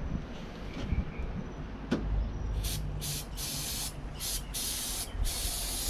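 A pressurised spray hissing in six short, quick bursts, starting about two and a half seconds in, after a single click.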